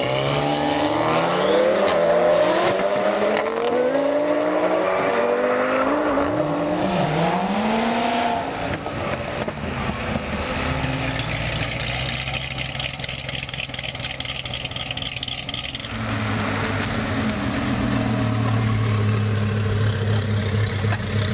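A Volkswagen Golf R and a Lamborghini Gallardo launching side by side and accelerating hard, their engine notes climbing and dropping back several times as they shift up through the gears, then receding into a steadier drone. Near the end a car engine runs steadily close by.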